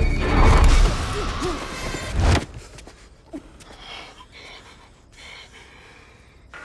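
A loud, deep, rumbling film soundtrack cuts off abruptly about two and a half seconds in. In the quiet that follows, a woman gives a short gasp and breathes faintly as she is grabbed.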